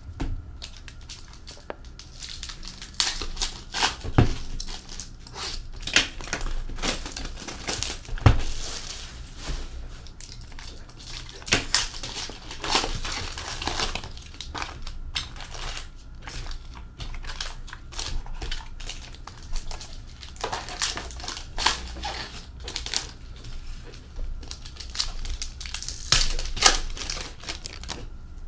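Plastic and foil wrapping on hockey card boxes and packs crinkling and tearing as they are opened by hand, in irregular crackling bursts, with a couple of dull knocks of boxes set down on the table.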